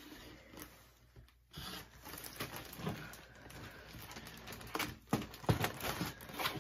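Irregular rustling, crinkling and light knocks from cardboard donut boxes and their packaging being handled, louder in the second half.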